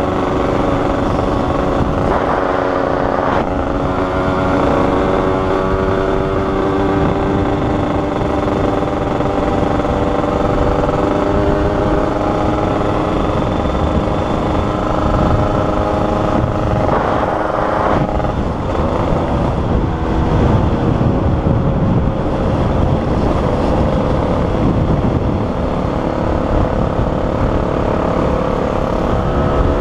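Yamaha RD135 two-stroke single-cylinder motorcycle engine running at road speed, with heavy wind rush on the microphone. The engine note changes briefly about three seconds in and again about seventeen seconds in.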